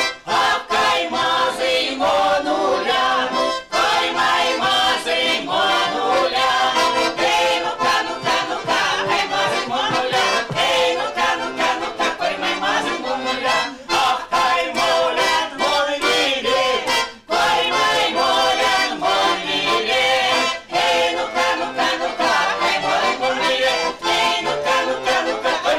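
Women's folk ensemble singing Erzya chastushki to a button accordion (bayan), with a few brief breaks between lines.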